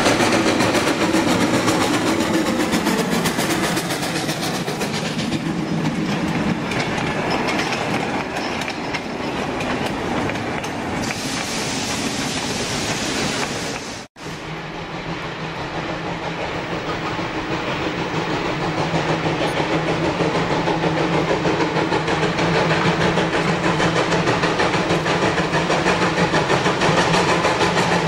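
Alberni Pacific Railway steam locomotive No. 7 working past close by with wheels clattering on the rails, fading as it draws away. After a sudden brief cut-out just past the halfway point, the steam train is heard approaching, growing steadily louder.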